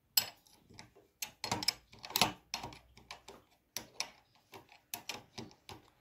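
Open-end spanner clicking and clinking against the terminal nut of a battery cut-off switch as the nut is tightened down on the cable's ring terminal: an irregular series of short metal clicks, several a second.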